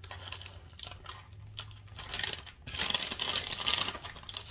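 Crinkling and rustling of plastic packaging, a quick crackle of clicks, as a bag of shredded cheese is handled; loudest in the second half.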